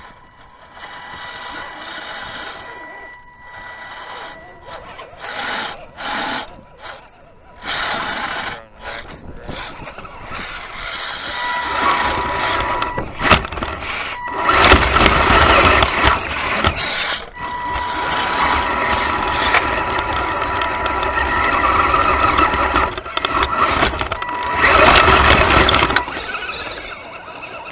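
Radio-controlled scale rock crawlers grinding up a rocky hillside: electric motors and gears whining with a steady thin tone that comes and goes, over tyres scrabbling and rocks scraping and clattering. It is loudest in two stretches, the second as a crawler climbs right over the camera near the end.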